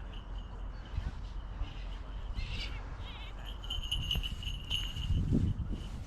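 A small falconry bell on a Harris's hawk ringing in short, intermittent jingles, clearest about four to five seconds in, over low rumbling noise that swells about five seconds in.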